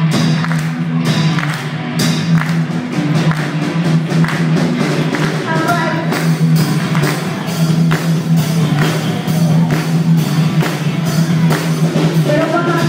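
A live rock band playing: electric guitars and bass over a steady drum beat, with a female singer's voice coming in at times.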